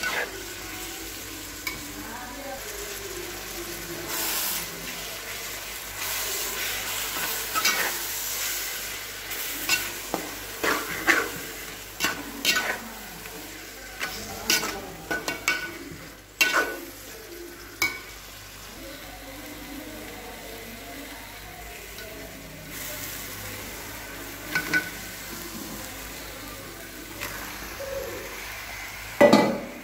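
A spatula stirring and scraping a sizzling onion-and-tomato curry base in a metal pot, with frequent clinks and scrapes of the utensil against the pot. There is a louder knock near the end.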